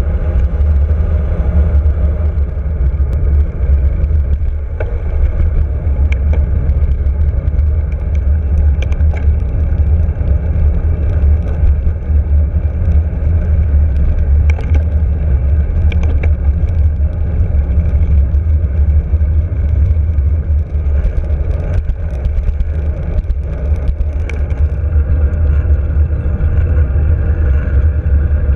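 Wind buffeting the microphone of a handlebar-mounted camera on a moving road bike: a loud, steady low rumble. Sharp clicks and rattles from the bars come through now and then, and cars pass the bike.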